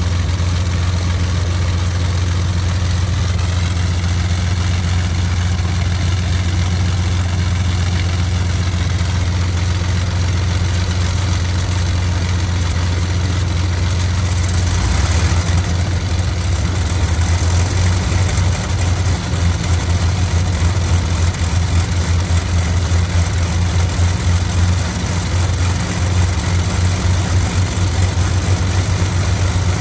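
A de Havilland Mosquito's Rolls-Royce Merlin V12 engines running at idle, a loud, steady deep drone. About halfway through, after a brief rush of hiss, the drone turns rougher and more uneven.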